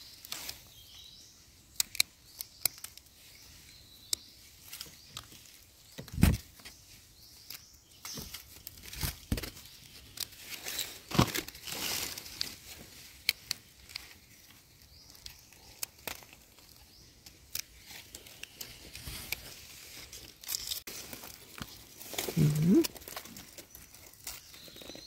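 Dry leaf litter and forest soil rustling and crackling as hands pluck wild chanterelle-type mushrooms from the ground, with scattered small snaps and a few louder knocks. A brief low hum-like sound near the end.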